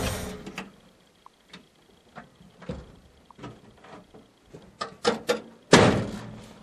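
The Chevy dump truck's 283 small-block V8 is switched off and dies away in the first half second. Scattered light clicks and knocks follow, then a loud clunk shortly before the end.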